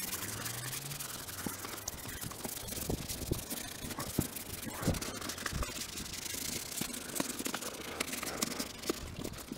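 Plastic masking sheet rustling and crinkling while a primed car wheel is handled and turned on a wooden board, with scattered light knocks and scrapes.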